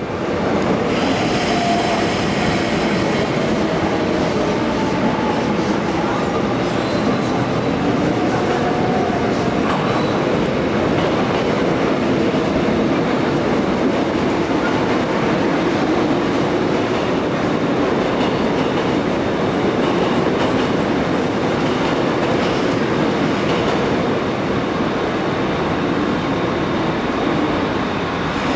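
Electric subway train pulling into an underground station: a steady rumble and clatter of wheels on rail, with motor tones sliding in pitch as it slows.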